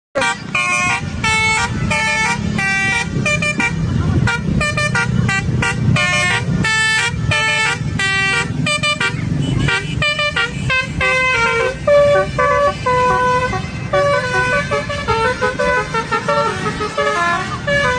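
Bus 'telolet' musical air horn playing a rapid run of short pitched toots, then a slower melody of longer notes from about ten seconds in, over a low steady rumble.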